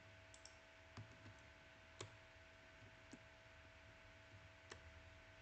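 Near silence with a handful of faint, irregularly spaced computer mouse clicks, the sharpest about two seconds in, as the on-screen page is zoomed in.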